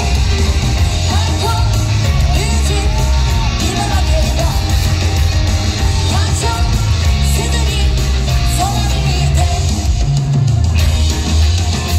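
Live song by a Japanese girl group played loud through a concert PA: a heavy-bass backing track with the group's singing, which drops away about ten and a half seconds in.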